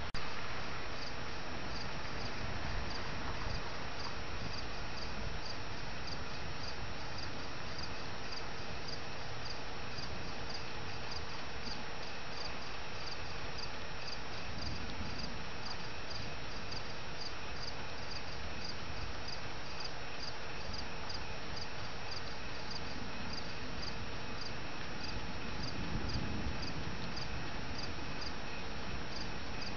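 Crickets chirping steadily in a regular, quick rhythm over a constant background hiss, with a single sharp click right at the start.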